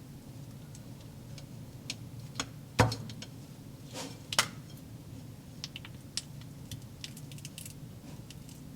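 Small clicks and taps of toy slime-kit pieces being handled, with one louder knock nearly three seconds in and two more sharp taps about a second later.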